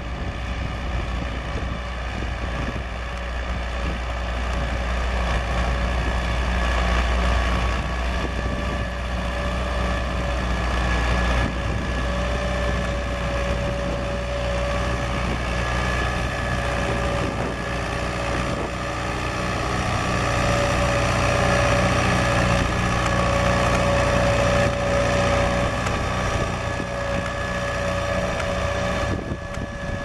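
David Brown 990 Selectamatic tractor engine running steadily under load while pulling a mounted plough through the soil, its low drone swelling a little as the tractor comes closer.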